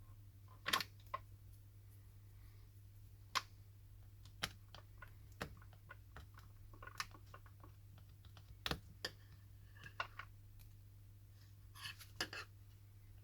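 Faint, irregular light clicks and taps of small repair tools working against a smartphone's housing while old adhesive is cleaned off, about a dozen over the stretch, over a steady low hum.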